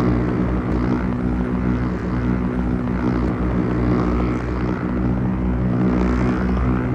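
Several lightsaber sound effects layered into one steady idle hum: a low, even buzzing drone, with a faint wavering shimmer higher up every couple of seconds.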